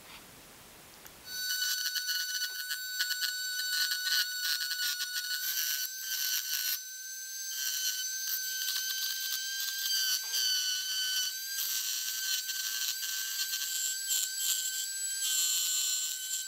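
High-speed rotary tool starting about a second in and running with a steady high whine, its burr grinding a V-groove along the crack in the ABS plastic housing, with uneven scraping as it bites.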